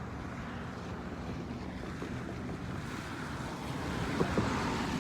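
A vehicle passing on a wet, slushy road: a steady hiss of tyres through the wet that swells to its loudest near the end.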